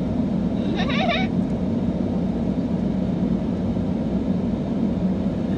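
Steady low rumble of a moving car heard from inside the cabin, with a brief voice about a second in.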